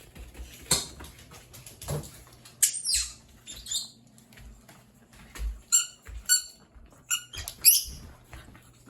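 High-pitched squeaks from a Shiba Inu, a dozen or so short ones coming in two clusters. Soft taps and rustles come in between.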